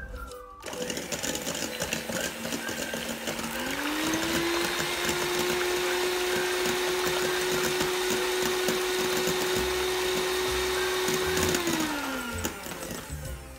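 Electric hand mixer whipping egg whites into meringue foam in a stainless steel bowl. The motor starts just under a second in at a low speed, rises to a higher steady pitch around four seconds in, then slows and stops near the end.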